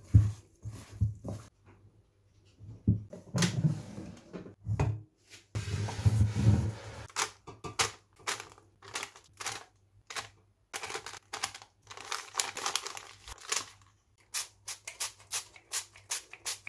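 Hands handling flour-coated chicken wings: a few dull thuds and rustles as they are tossed in a glass bowl, then a long run of irregular taps, clicks and paper crinkles as they are set out on parchment paper in an air fryer basket.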